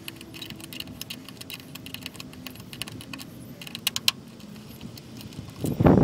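Light, irregular metallic clicks and ticks of a hex key turning out bolts on a Land Rover Defender's rear body panel. Just before the end a louder rush of noise starts.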